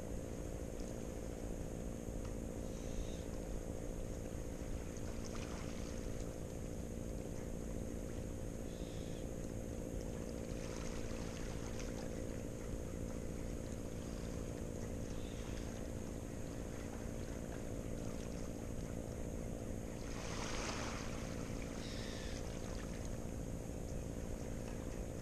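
Steady low drone of a distant boat engine. A few brief washes of noise come and go about 5, 11 and 20 seconds in.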